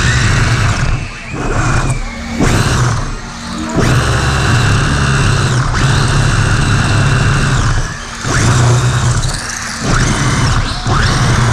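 3D-printed OpenRC F1 radio-controlled car's electric motor and gear drive buzzing and whining in throttle bursts, heard from on board the car. The sound cuts out briefly several times as the car lets off, and its pitch rises and falls with speed.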